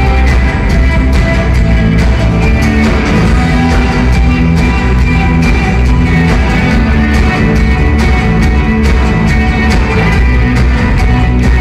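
A live rock band playing loud, with guitar over bass and a steady drum beat.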